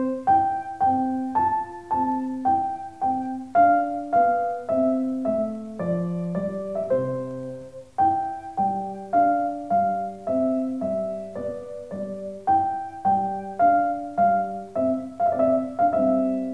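Background piano music: a gentle melody of evenly spaced single notes, about three a second, whose phrase starts over about halfway through.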